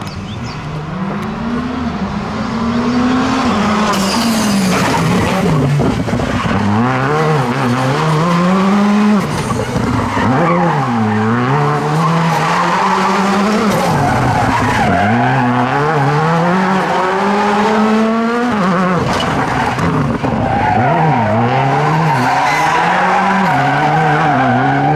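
Škoda Fabia R5 rally car's turbocharged 1.6-litre four-cylinder engine revving hard and dropping back again and again through tight turns, its pitch rising and falling with each corner and gear change, with tyres squealing and skidding on the asphalt.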